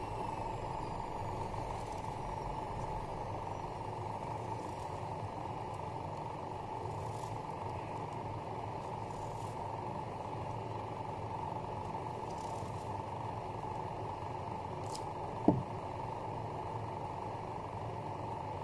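Steady background hum and hiss, with a single short sharp knock about fifteen and a half seconds in that drops quickly in pitch.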